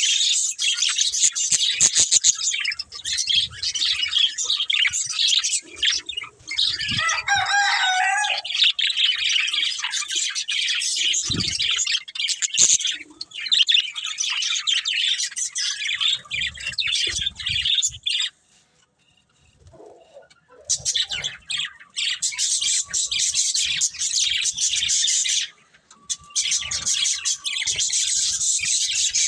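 Budgerigars chattering: a dense, continuous run of quick, high chirps and warbles from several birds. It breaks off for about two seconds a little past the middle, then resumes.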